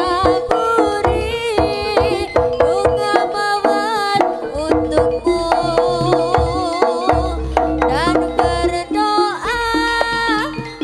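Live East Javanese jaranan music from a gamelan ensemble: hand drumming under a melody line whose pitch slides and wavers.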